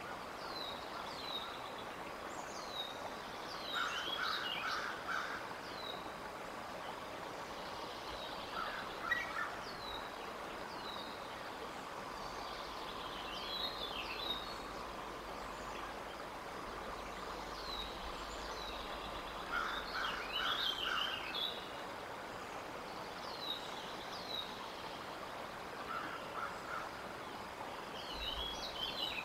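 Songbirds singing in the surrounding woods: short down-slurred high notes repeating about once a second, with fuller song phrases every five or six seconds, over a steady outdoor hiss.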